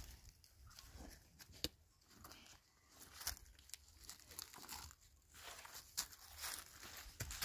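Faint, irregular crunching and rustling of dry leaves and grit underfoot, with a few sharp clicks and scuffs, as a small child steps and scrambles beside a tree trunk.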